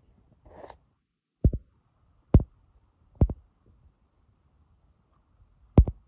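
Five sharp knocks spread over a few seconds, two of them in quick pairs, the last one the loudest.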